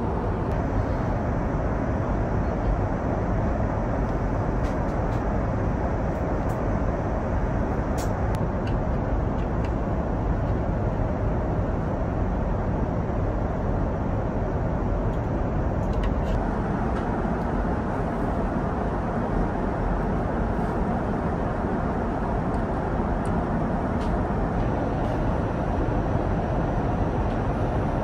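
Steady in-flight cabin noise of an Airbus A350-1000 airliner at cruise: an even, low rush of engine and airflow noise with no change in level, and a few faint clicks about a third and halfway through.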